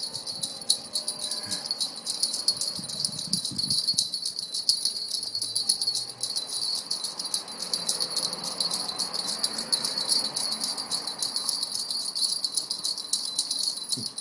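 Bells rung rapidly and without pause: a dense, high jingling that runs on steadily.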